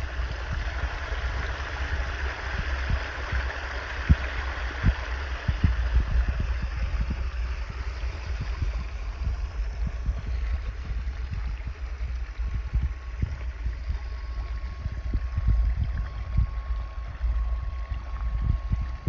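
Water pumped through a Gold Hog Piglet highbanker, spraying into the hopper and rushing down the sluice box into a pool as a steady splashing rush, with irregular low knocks. A steady high whine joins about halfway through.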